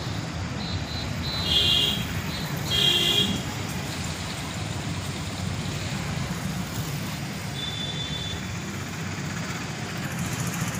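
Steady road traffic noise, with two short vehicle horn honks about two and three seconds in and a faint third honk near the end.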